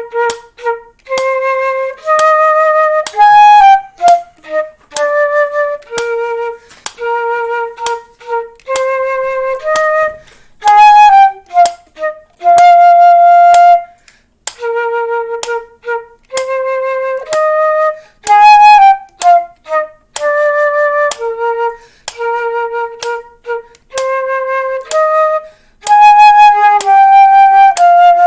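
A woodwind instrument playing a slow melody, about one note to a beat, with short breaks between phrases. An old metronome clicks steadily underneath at 63 beats per minute, about once a second.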